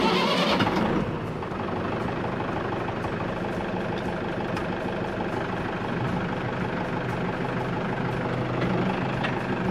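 Compact tractor's diesel engine running steadily as the tractor drives up a slope. The sound starts abruptly and is brightest and loudest in the first second.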